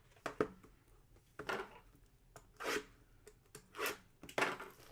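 Trading card pack wrappers and cards being handled: a string of short rustles and tears, about five in all.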